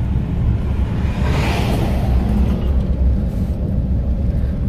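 Toyota Tundra pickup driving, heard from inside the cab: a steady low rumble of engine and road noise. About a second and a half in, a rushing sound swells and fades away.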